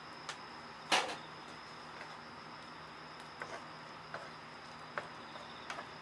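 Wooden spatula stirring diced apples in an iron frying pan, with one sharp knock about a second in and several lighter clicks. A steady high cricket trill runs underneath.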